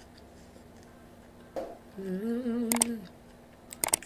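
A woman's approving closed-mouth hum, 'mmm', about a second long and wavering in pitch, with her mouth full. Just before the end, a few sharp clicks: the mouse-click sound effect of a subscribe-button animation.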